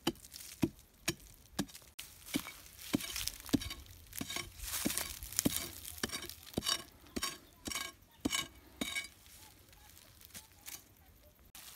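A ribbed steel bar (rebar) jabbed again and again into hard, dry dirt to dig a small pit, about two sharp strikes a second, with loose soil scraping and crumbling between them. The strikes stop about nine seconds in.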